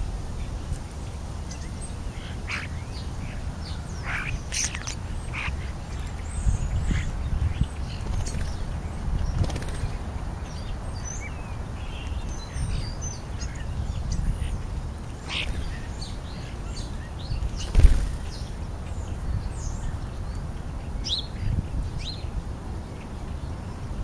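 European starlings calling in short chirps, clicks and whistles scattered throughout, over a steady low rumble. A single sharp knock about three quarters of the way through is the loudest sound.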